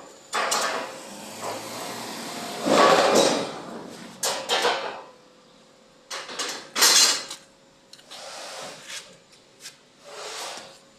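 Hand work on steel parts: a series of short scraping and rubbing strokes with a few knocks, in uneven bursts.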